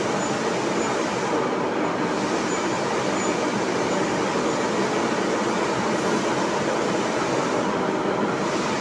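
Steady, dense roar of machine-shop noise that holds an even level throughout, with no distinct strikes or changes.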